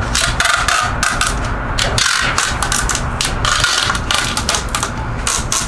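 Hands working on a bicycle wheel: a fast, irregular run of scraping, rubbing and knocking against the rim and tyre.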